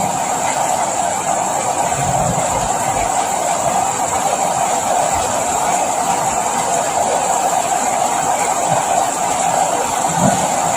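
Steady rain falling, an even unbroken hiss with a few faint low thuds mixed in.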